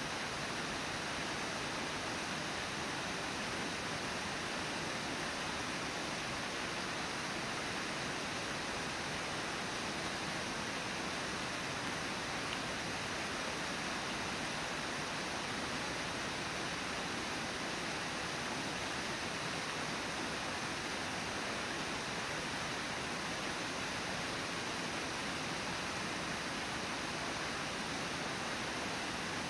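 Steady, even rush of Brooks River water, with no other sound standing out.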